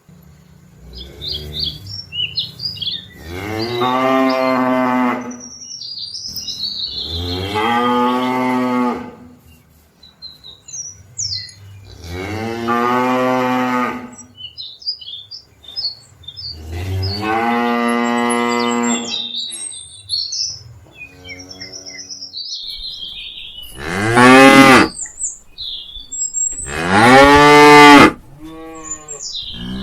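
Cattle mooing: six long moos a few seconds apart, the last two the loudest.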